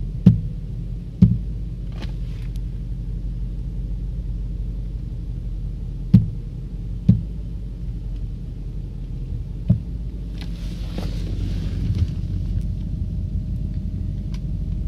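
Car running with a steady low rumble, broken by about six sharp, irregularly spaced knocks: the knock the car is being recorded for.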